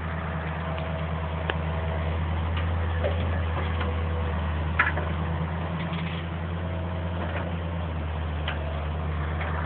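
Hydraulic excavator's diesel engine running steadily, a low even hum, with a few faint clicks about one and a half and five seconds in.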